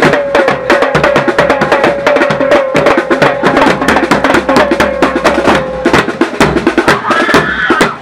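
Marching bass drums struck with felt mallets, played together with a snare drum in a fast, dense beat.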